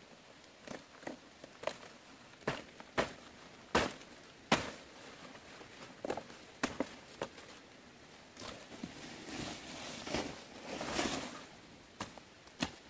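Machete chopping through leafy plant stalks in irregular sharp strokes, with leaves rustling and crackling as the cut stems are pulled down and gathered; the longest rustle comes about eight to eleven seconds in.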